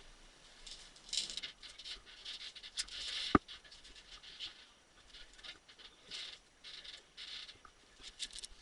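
Irregular scuffing and rustling noises close to the microphone, with one sharp click about three and a half seconds in.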